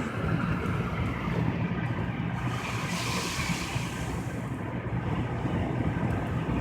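Car road noise heard from inside the cabin: a steady low drone of engine and tyres on a snowy road. A hiss swells up and fades away about halfway through.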